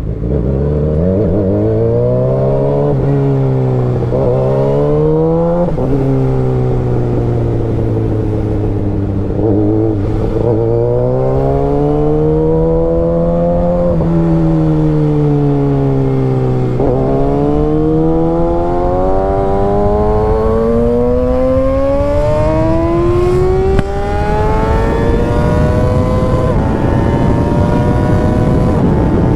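Kawasaki ZX-6R inline-four engine accelerating on the road. Its pitch climbs in each gear and drops sharply at the upshifts, about three, six and seventeen seconds in, then climbs steadily and high through the last third.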